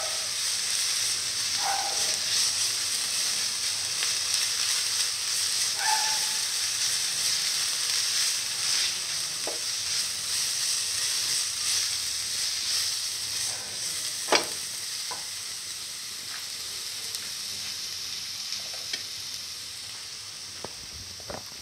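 Onion pieces sizzling in hot oil in a frying pan while a spatula stirs and scrapes them around. The sizzle slowly fades toward the end, with one sharp tap about fourteen seconds in.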